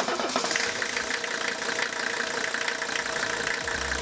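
A diesel engine idling steadily, with a fast ticking clatter. It cuts in suddenly at the start.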